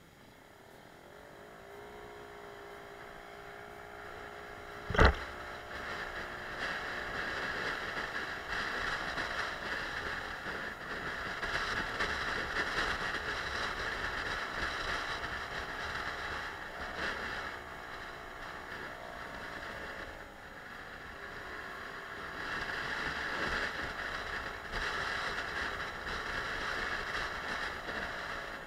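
Suzuki Let's 4 50cc scooter's single-cylinder four-stroke engine pulling away and running along at speed, its pitch shifting with the throttle, over wind and road noise. A single sharp knock about five seconds in.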